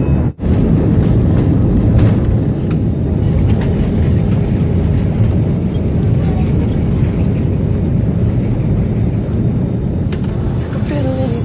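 Airliner cabin noise heard from a window seat on the landing approach: a loud, steady rumble of engines and airflow. It drops out for a split second just after the start.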